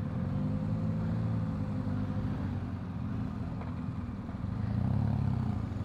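Motorcycle engines running at low revs while moving slowly in a queue, the revs rising and easing off twice.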